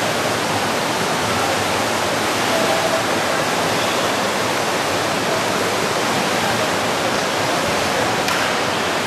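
Steady wash of splashing water from finswimmers kicking in bi-fins as they race down the pool.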